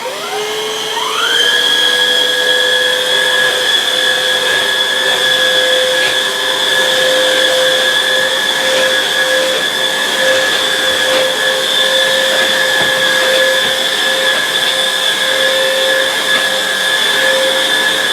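Hoover React cordless upright vacuum's battery-powered motor switching on and spinning up over about a second and a half with a rising whine, then running at a steady high whine.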